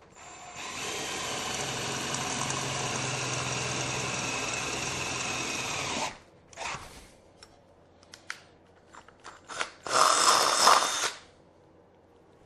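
Electric drill with a 6.5 mm bit running steadily for about five and a half seconds while drilling a hole in an inner mudguard, followed by a few clicks and knocks and then a second, louder burst of drilling lasting about a second, near the end.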